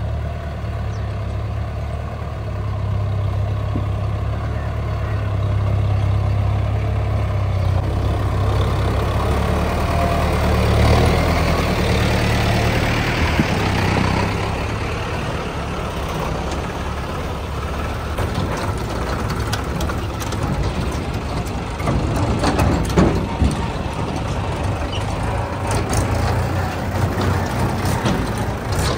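Diesel tractor engine running, growing louder over the first ten seconds or so and then easing off, with frequent clanks and rattles in the second half.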